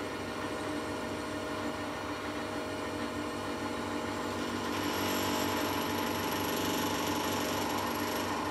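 Small benchtop metal lathe running, its chuck spinning a metal bar with a steady machine hum. About halfway in, a higher, slightly louder cutting sound joins as the turning tool is fed into the bar.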